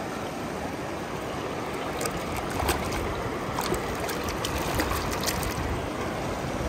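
Shallow river running over rocks, with a run of small splashes and drips from about two seconds in as a hand dips a toy fish into the water.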